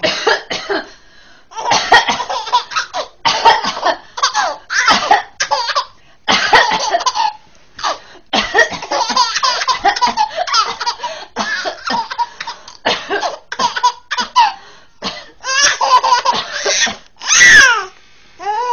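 A baby coughing, mixed with repeated bursts of high-pitched laughter in short runs with brief pauses, ending in a loud squeal near the end.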